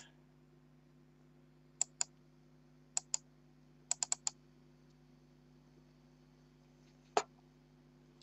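Computer mouse buttons clicking: two pairs of clicks, a quick run of four, then a single louder click near the end, over a faint low steady hum.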